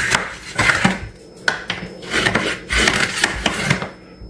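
Hand grout removal tool raking cracked grout out of the joint between a countertop and a tile backsplash, in a series of rough scraping strokes.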